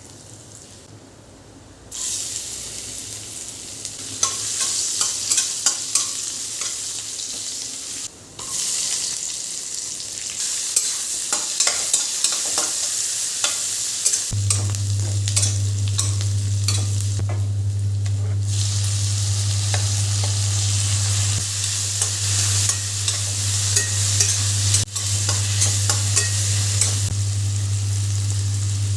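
Food frying and sizzling in a pan while a spoon or spatula stirs it, with frequent clicks and scrapes against the pan. A steady low hum comes in about halfway through.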